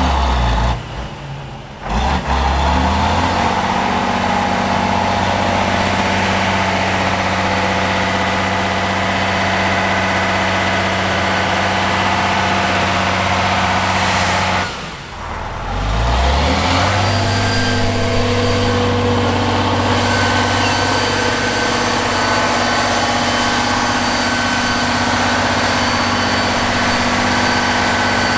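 Tatra 8x8 trial truck's diesel engine working hard under load through deep mud and water. The revs drop briefly about a second in, then climb and hold steady; they drop again about fifteen seconds in and rise back up with a rising note.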